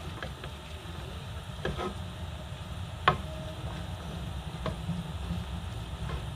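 Pots of thick ogbono soup simmering on a stove: scattered pops and clicks over a low steady hum. About three seconds in there is one sharp metallic click that rings briefly.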